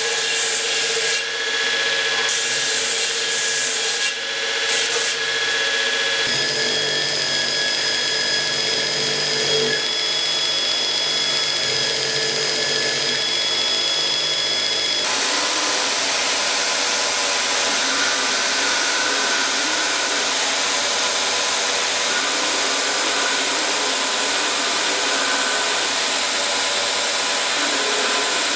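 Belt grinder running with a steel sword blade pressed against the abrasive belt: a steady rasping grind over a whine from the machine. The tone of the grind shifts twice, about six and fifteen seconds in.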